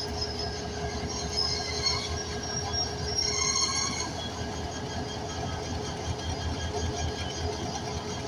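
A train running on its rails: a steady low rumble, with a high metallic wheel squeal that is strongest between about one and four seconds in.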